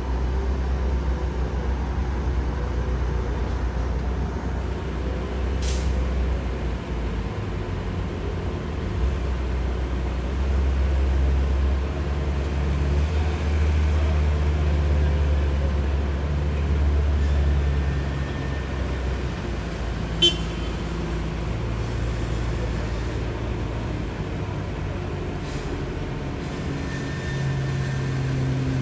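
Deep, steady rumble of heavy diesel vehicles or machinery running, its pitch shifting now and then, with a sharp click about twenty seconds in.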